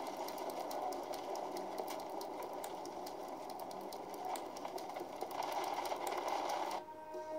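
Storm-chase footage played through laptop speakers: a steady rush of wind and rain noise with many small clicks and rattles. It cuts off near the end as music starts.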